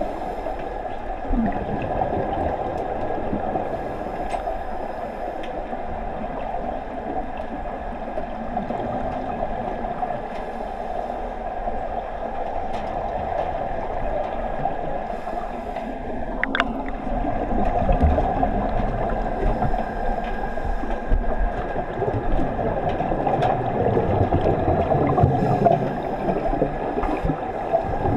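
Muffled underwater noise heard from a camera submerged in a swimming pool: a steady, low rush of water, with a single sharp click about sixteen seconds in.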